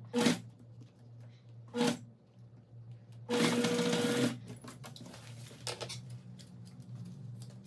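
Singer Facilita Pro domestic sewing machine stitching in short runs: two brief bursts, then a run of about a second. After that come faint clicks of handling.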